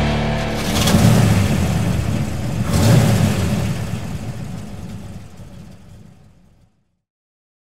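An engine idling, then revved twice, about a second and about three seconds in, the sound dying away to silence near the end.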